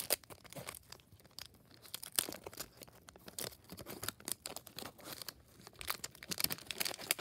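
Wax-paper wrapper of a 1988 Topps baseball card pack being torn open and crinkled by hand: a dense, irregular run of crackles and rips.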